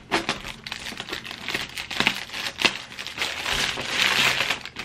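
Thin plastic packaging crinkling as it is cut open with scissors and pulled off a padded fabric bag: sharp crackles at first, then a denser, louder rustle near the end.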